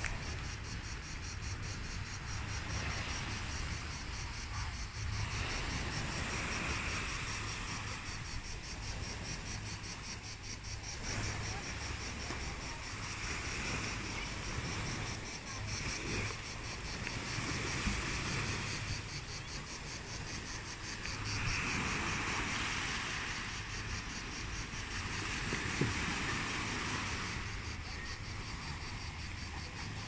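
Small sea waves washing against shoreline rocks, swelling every few seconds, with wind rumbling on the microphone. A steady high buzz of insects runs behind.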